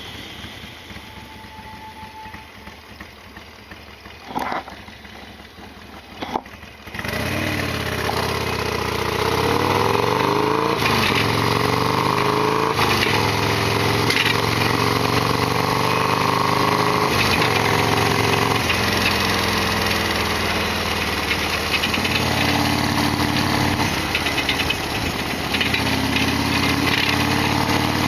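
Harley-Davidson Sportster XL1200R's air-cooled V-twin starting up about seven seconds in, after a quieter stretch with a couple of knocks, then running loud with its pitch rising and falling.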